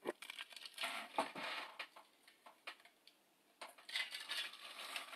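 Handling noise: rustling and light clinks as a drinking glass is picked up and sipped from, in two short spells about a second and about four seconds in.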